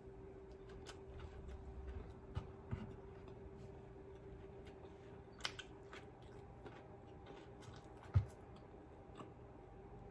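Close-mic'd mouth sounds of someone chewing food, with scattered wet clicks and smacks, over a steady faint hum. A few soft low thumps come between two and three seconds in, and a louder one about eight seconds in.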